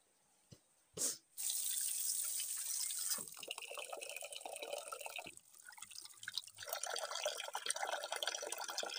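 Water from a tap pouring and splashing into an aluminium pot of rice as the rice is washed. A sharp click comes about a second in, then the stream starts, drops off for about a second midway, and runs again.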